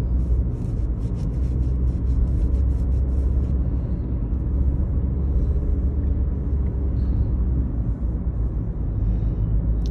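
Steady low rumble of road and engine noise inside a moving car's cabin, with a run of faint, rapid high clicks through the first few seconds.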